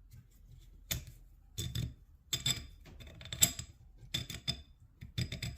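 Quick-release socket ratchets being worked back and forth, the pawl clicking in short runs of ticks about once a second. They seem pretty frozen and sound like they could use some work.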